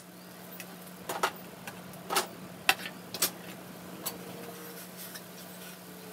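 A handful of light, irregularly spaced clicks and taps as a small wooden model boat hull is handled and turned in the hands, over a steady low hum.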